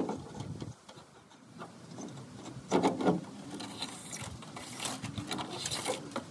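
Irregular clicks, knocks and rubbing of hand work on parts, with a louder cluster of knocks about three seconds in.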